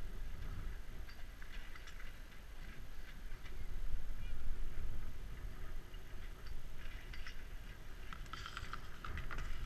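Skis sliding over hard-packed groomed snow, a scraping hiss with irregular small clicks and crackles from the ski edges, louder for a stretch in the middle. Wind rumbles on the GoPro Hero 3's microphone underneath.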